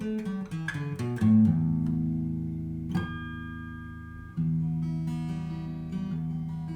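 Yamaha FG850 all-mahogany dreadnought acoustic guitar fingerpicked: a quick run of single notes stepping down in pitch, then notes left to ring. A sharp, bright ping comes about three seconds in, and a fresh note is plucked and rings out about four and a half seconds in.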